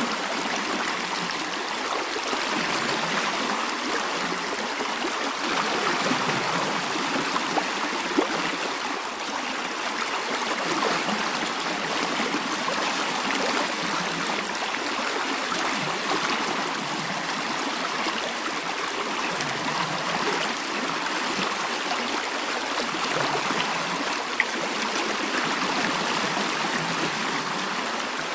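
Running water of a stream, a steady rushing and trickling, with a few brief ticks.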